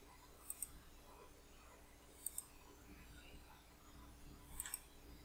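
Faint computer-mouse clicks, three pairs in quick succession, over quiet room tone.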